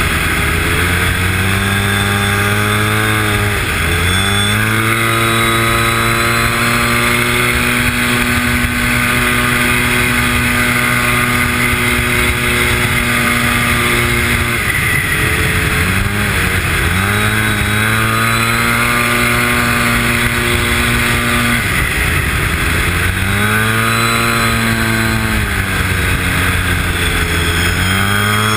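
Arctic Cat Z1 Turbo snowmobile's turbocharged three-cylinder four-stroke engine running hard at steady high revs. Several times the revs dip and then climb again as the throttle is eased and reapplied.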